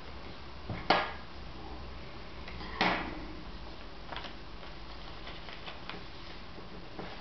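A sheet of paper being folded and creased by hand against a wooden tabletop: two sharp crackles about one second and three seconds in, then a few faint ticks, over a steady low hum.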